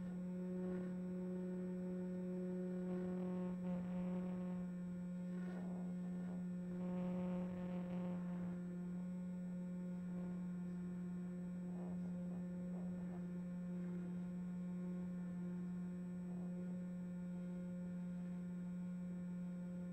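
Electric motor and propeller of a Skysurfer RC glider running at steady throttle in flight, heard from the onboard camera microphone: a steady hum with a ladder of overtones.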